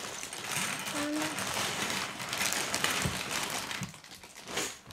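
Plastic bag crinkling as small plastic K'nex pieces are shaken out of it, clattering onto a pile of parts; it quietens about four seconds in.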